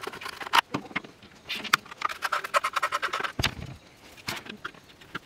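Small sharp clicks and taps of a screwdriver working at the visor screws of a plastic motorcycle helmet shell, with a quick run of clicks about two to three seconds in. A dull knock follows at about three and a half seconds.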